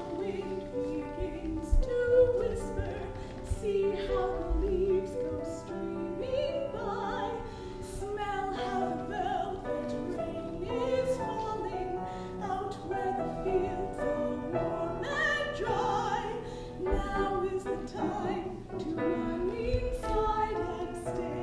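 Music: singing with instrumental accompaniment.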